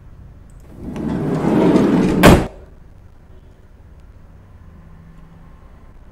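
Sliding door of a simulated CNC lathe shutting: a rush of sliding noise that swells for about a second and a half, then ends in one sharp clack.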